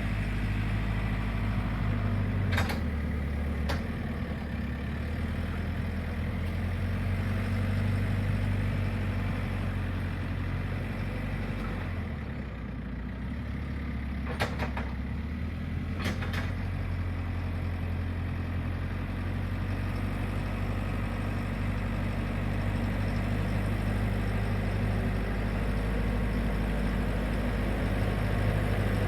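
JCB 4CX backhoe loader's diesel engine running steadily as the front bucket pushes and levels loose stone, its revs stepping up and down a few times. Four sharp knocks stand out, two about three seconds in and two around fifteen seconds in.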